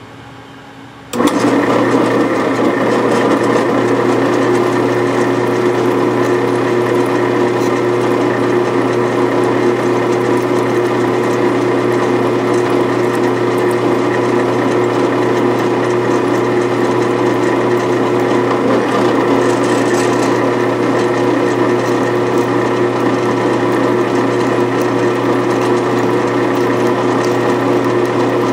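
Bench drill press switched on about a second in, then running steadily as its twist bit drills into a clamped metal cylinder-head block.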